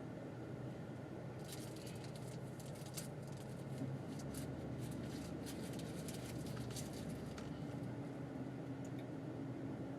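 Car cabin noise while driving: a steady engine hum with road noise, the engine note rising in pitch about seven seconds in, and scattered faint clicks and rattles.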